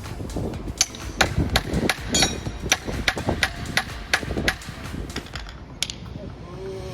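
Rapid hammer blows, about three a second, some with a brief ring, tailing off about six seconds in. This is hand work during an inboard boat gearbox repair.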